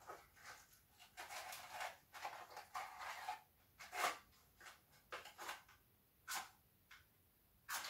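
Faint handling of a matchbox: rustling and sliding as it is opened and a match taken out, then several short, sharp scrapes as a match is struck against the box to light a candle.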